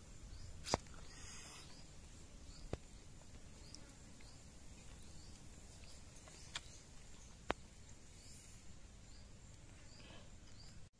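Quiet rural outdoor ambience: faint high chirps of small creatures repeating about once a second, and a few sharp clicks, the loudest less than a second in.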